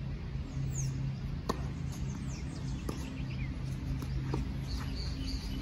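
Tennis balls struck with rackets during a rally on a clay court: three sharp pops about a second and a half apart. Birds chirp over a steady low hum.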